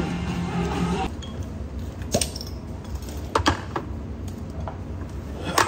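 Background music fading out about a second in, then a handful of sharp clinks of cutlery against dishes.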